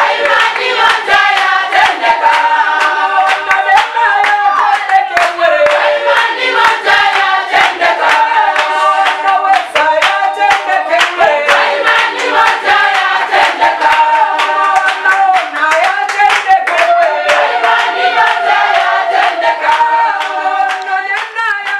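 Congregation of women singing a praise song together, with steady hand-clapping on the beat.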